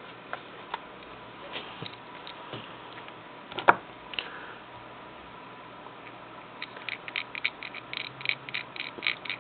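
A few light clicks and one sharper click, then, from about two-thirds of the way in, a fast regular ticking of about five ticks a second.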